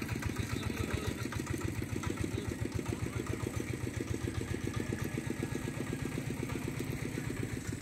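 An engine idling steadily, with a rapid, even low beat.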